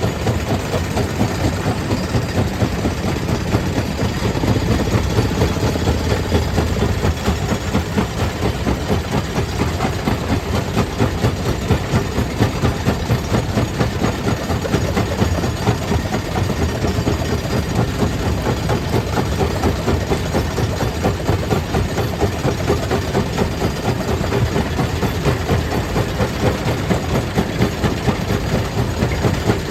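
Stone crusher machine running steadily: engine and crushing machinery with a fast, even pulsing.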